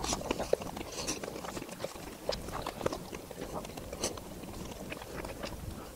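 A person chewing mouthfuls of shawarma close to the microphone, with scattered small wet mouth clicks.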